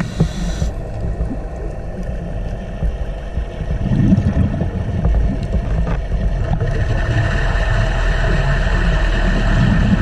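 Underwater ambience: a steady low rumble with a faint hum and scattered small clicks, growing a little louder about four seconds in.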